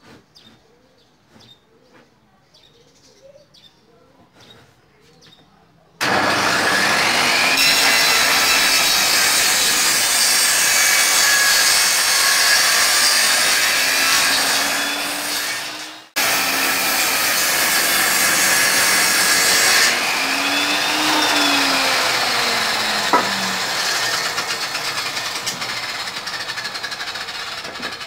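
Table saw switched on about six seconds in, running loud as its blade rips a pallet-wood board, with its pitch shifting under load. The sound breaks off briefly about sixteen seconds in, resumes, and fades slowly near the end.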